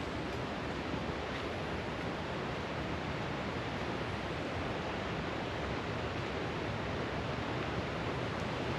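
Steady rush of a fast-flowing rainforest river, an even noise with no breaks.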